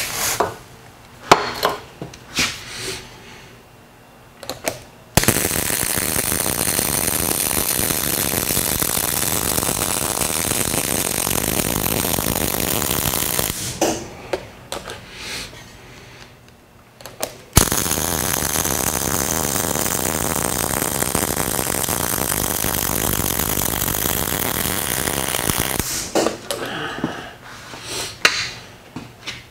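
MIG welder running two weld beads along the sides of a steel bracket, a steady sound of about eight seconds each. The first starts about five seconds in and the second about eighteen seconds in, with brief knocks of handling and the torch around them.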